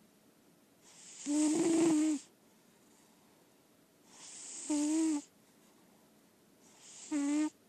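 Lilac point Siamese cat snoring in her sleep: three snoring breaths, each a breathy rush that ends in a short pitched snore, coming about every two and a half to three seconds.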